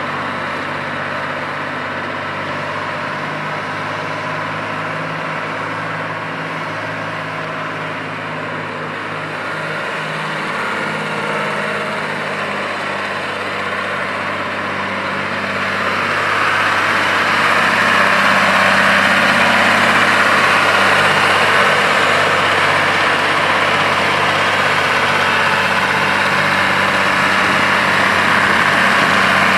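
John Deere 2955 tractor's six-cylinder diesel engine running steadily at idle, then brought up to a higher, louder engine speed about halfway through and held there.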